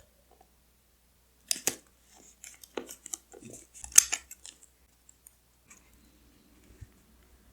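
Scissors cutting paper: a short run of sharp snips between about one and a half and four and a half seconds in, the loudest near four seconds.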